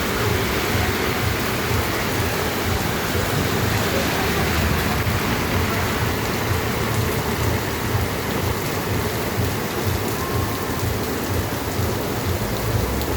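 Heavy rain falling on city streets: a steady, even hiss with a low rumble underneath.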